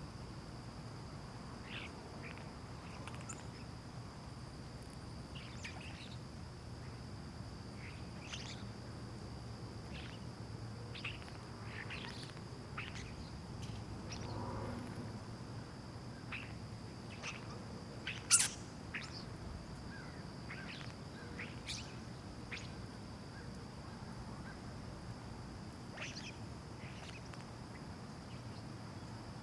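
Residential ambience: birds chirping and calling in short scattered notes, with one loud sharp chirp about eighteen seconds in. A steady thin high tone runs underneath, over a low background rumble that swells briefly midway.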